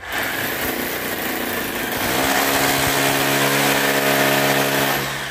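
Corded electric drill running at full speed, drilling overhead into the ceiling with a loud grinding of the bit. A steady motor whine settles in about two seconds in, and the drill is let off near the end.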